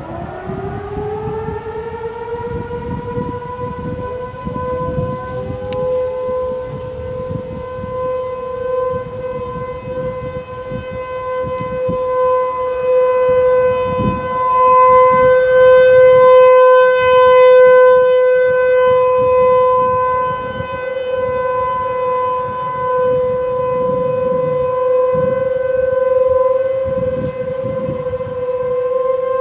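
ASC T-128 outdoor warning sirens sounding in a routine test. The nearest winds up in pitch to a steady wailing tone, and more distant sirens wind up and join a few seconds later. The sound swells and fades as they run, with wind rumbling on the microphone.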